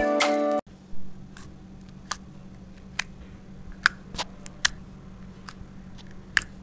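Slime being pressed and poked by hand in a glass dish: a dozen or so small, sharp clicks and pops at irregular intervals over a low steady hum. Background music cuts off about half a second in.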